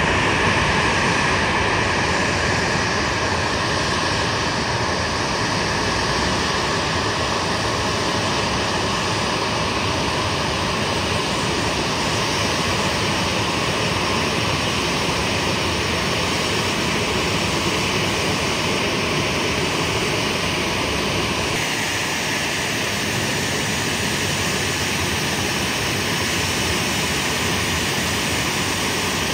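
Jet engine noise from an airliner, a loud, steady rush with no break, its tone shifting slightly about two-thirds of the way through.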